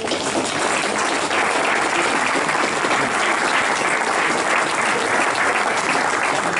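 An audience applauding steadily, with many hands clapping together.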